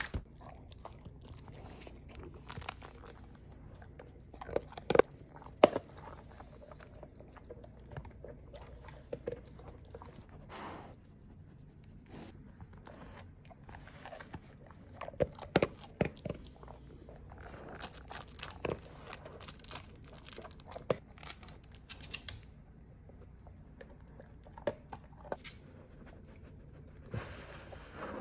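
A golden retriever rooting through a fleece snuffle mat, crunching kibble and rustling the fabric strips in scattered, irregular bursts.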